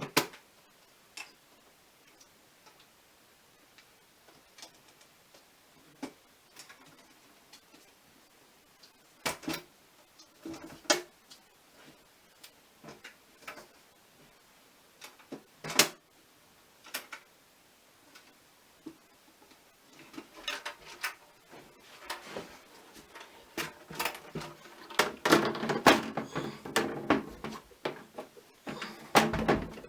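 Things being handled: scattered single clicks and knocks, then busier handling and rustling with knocks, loudest about two-thirds of the way in.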